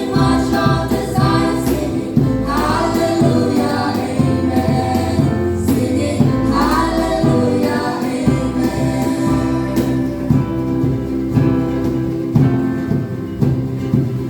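A youth choir singing a gospel worship song over an instrumental accompaniment with a steady bass pulse.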